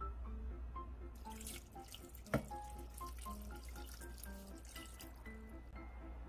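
Water pouring from a plastic measuring cup into a rice cooker's inner pot, splashing onto rice and shredded carrots, with one sharp knock about two seconds in. Light background music plays throughout.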